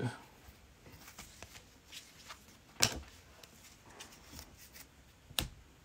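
Football trading cards being handled and flipped through: faint rustles and light ticks, with two sharper clicks about three seconds in and near the end.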